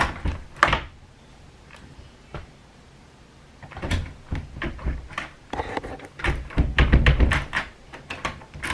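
Door and lock hardware being worked: a sharp click shortly after the start, then a quiet stretch, then a quick run of clicks and knocks with heavier thumps near the end.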